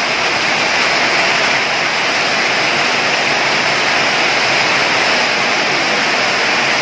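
Heavy rain falling on a corrugated zinc roof: a loud, steady, even rush with no breaks.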